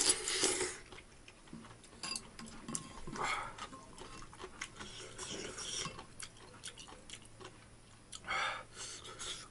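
A slurp of noodle broth from a spoon, then the spoon and chopsticks clicking against a ceramic bowl while stirring milk ramyeon, with a few more soft slurps.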